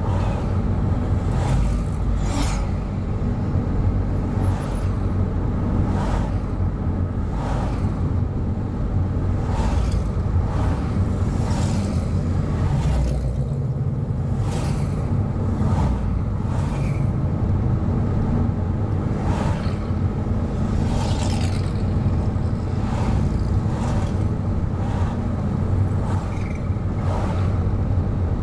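Steady low engine and road rumble of a moving car, heard from inside it, with a short rush each time an oncoming classic car passes close by, about every second or so.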